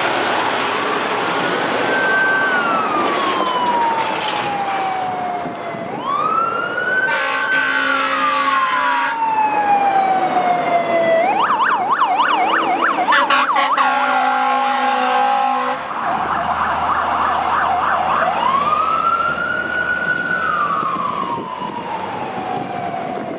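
Fire engine siren running code 3. It wails three times, each one rising quickly and sliding slowly back down, with a spell of fast yelping and quick warbling between the second and third wails. Two long blasts of the truck's air horn sound over it.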